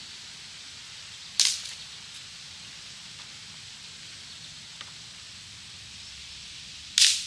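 Two sharp cracks about five and a half seconds apart, each dying away quickly, over a steady faint hiss.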